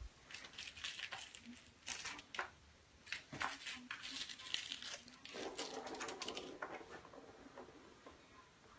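Kittens playing: rustling and scratching with light clicks, coming in irregular bursts.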